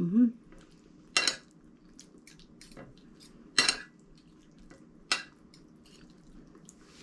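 Spoon and fork clinking and scraping on a plate, with three sharper clinks about a second, three and a half seconds and five seconds in, and lighter taps between.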